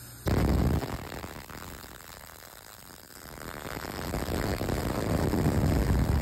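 MIG welding arc crackling as a short-circuit RMD root pass is run in a beveled steel pipe joint. It is loudest for about half a second just after the start, eases for a couple of seconds, then builds back to a steady crackle.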